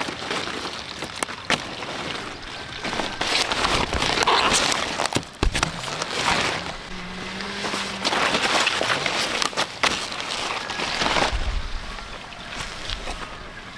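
Kohlrabi being harvested by hand: large leaves rustling and stems cut with a long knife as the plants are pulled, with soil crumbling off the roots. The rustling comes in uneven spells with sharp clicks between them.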